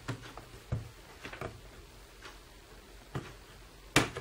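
Plastic latches of a Dell Latitude E7250 keyboard bezel clicking and snapping as the bezel is pried loose with a thin pick tool. The clicks are short and scattered, about half a dozen in all, and the loudest comes near the end.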